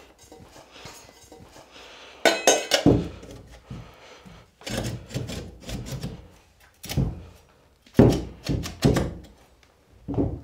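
Stainless steel chimney flue pipe being pushed and worked into a wall pass-through plate by hand: several short runs of metal knocks, clanks and scraping, the loudest about eight seconds in.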